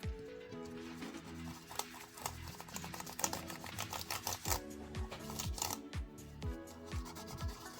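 Background music with a steady electronic beat, over which come the rubbing of a cloth and the clicking of keys as an Apple iMac keyboard is wiped clean, busiest in the middle seconds.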